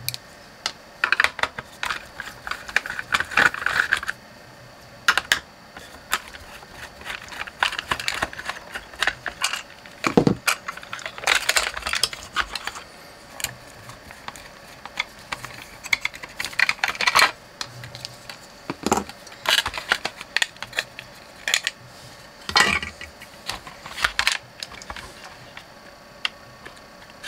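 Irregular small clicks, taps and scrapes of a DAB radio's plastic case and inner parts being handled and taken apart, with a screwdriver working on small screws. The handling sounds thin out near the end.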